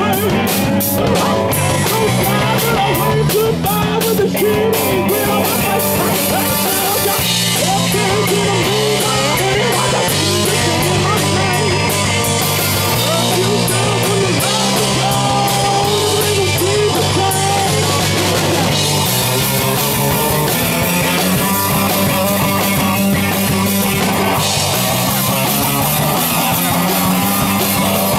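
Live rock band playing loudly: electric guitar and drum kit with cymbals under a singer's voice over the microphone, with a bass line stepping between notes.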